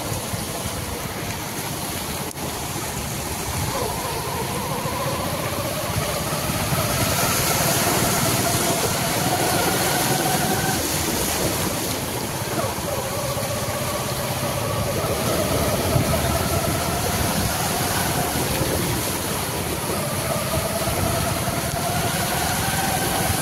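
Cars driving through a flooded road, their engines rising slowly in pitch a few times over a steady rush of water and wind.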